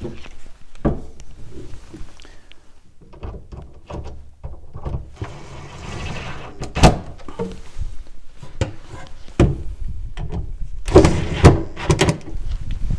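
Scattered knocks and thumps of wood and tool being handled, with two short bursts of a cordless impact driver driving screws into the pine bookcase frame, about halfway through and again near the end.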